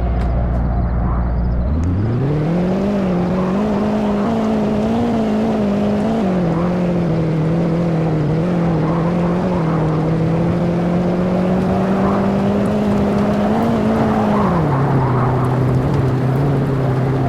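An engine running, speeding up sharply about two seconds in, holding at the higher speed with small wobbles, then dropping back somewhat near the end.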